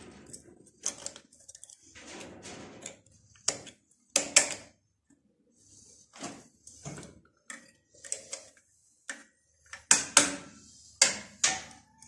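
Irregular metallic clicks and knocks of hand work on the gear-shift mechanism of a Yağmur 510 tiller gearbox, as parts of a shift-lever repair kit are fitted. The sharpest knocks come about four seconds in and again around ten to eleven seconds.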